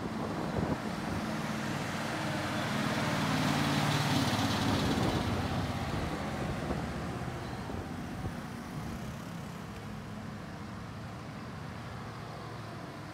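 A motor vehicle passing close by. Its engine and road noise swell to a peak about four seconds in, then fade away.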